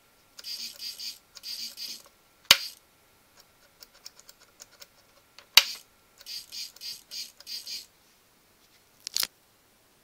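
Two small hobby RC servos whirring in quick short bursts as the transmitter's momentary switches swing them back and forth: two runs of bursts early on and another run after about six seconds. A faint steady whine sits under them and stops after the last burst. Three sharp clicks stand out, the loudest about two and a half and five and a half seconds in.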